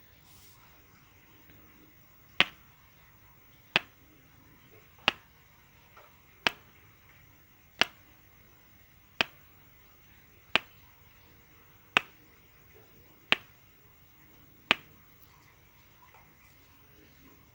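A sharp click repeated ten times at an even pace, about one every second and a half, then stopping; the source is unexplained.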